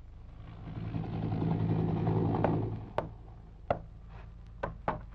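UH-1 Huey helicopter running, its engine and rotor sound swelling for about two seconds and then cutting off suddenly. It is followed by a few short, sharp knocks.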